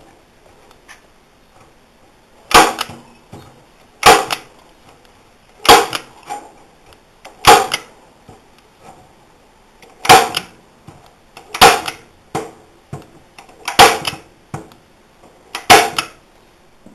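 Staple gun driving staples into wood: eight sharp snaps about every one and a half to two seconds, with fainter clicks between them.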